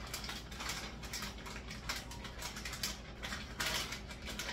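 Plastic food package crinkling and rustling in irregular crackles as ham pieces are shaken out of it into a pot of fettuccine.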